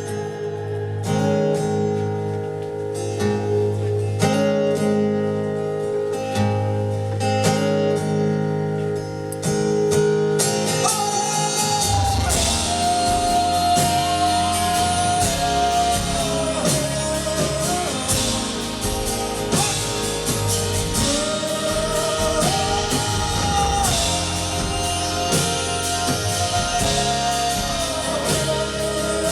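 Live band playing the instrumental stretch of a pop-rock ballad: a repeating plucked guitar pattern, with bass and drums coming in about ten seconds in and a long held melody line, perhaps wordless voice, floating above.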